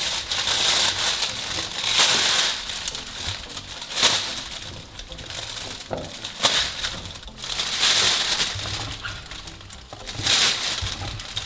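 Thin plastic roasting bag crinkling and rustling in irregular bursts as it is handled and handfuls of chopped raw vegetables are dropped into it.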